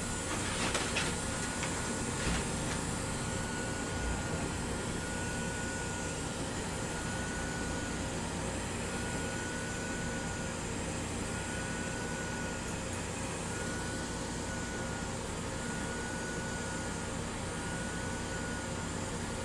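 Steady rushing air from a hot air rework station's blower and a fume extractor fan running together. A faint high tone comes back about every two seconds.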